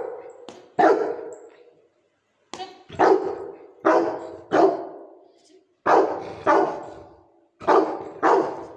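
A Rottweiler barking in loud single barks, about eight in all, each trailing off in a short echo. He is barking at a stuffed toy puppy that is being hit and waved at him, objecting to it being hit.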